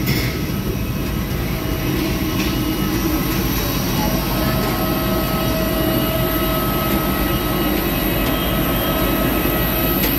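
Steady rushing drone of jet aircraft noise on an airport apron, with faint steady whining tones over it.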